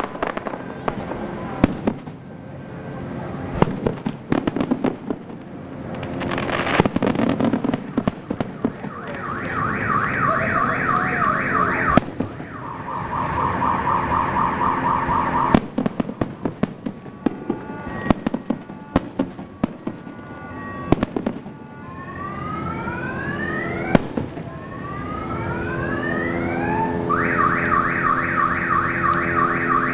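Aerial fireworks bursting with sharp bangs and crackles. Under them, a car alarm cycles through its tones: a fast high warble starting about a third of the way in that drops to a lower warble, then a run of rising whoops, and the fast warble again near the end.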